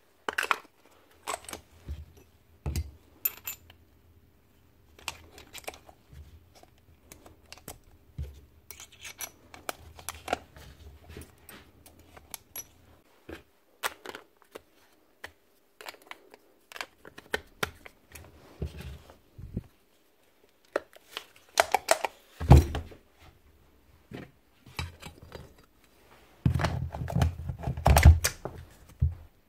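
Scattered clicks, clinks and knocks of hand tools and metal parts being handled as a Milwaukee K500 ST rotary hammer is bolted back together, with heavier knocking and clatter two-thirds of the way in and again near the end.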